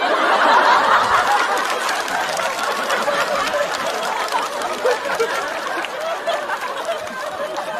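Studio audience laughing and clapping, loudest at first and slowly dying down.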